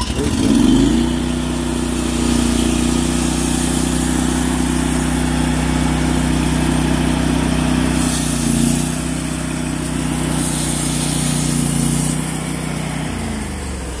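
Honda petrol engine of a portable band sawmill revving up just under a second in, running steadily at high speed, then dropping back near the end.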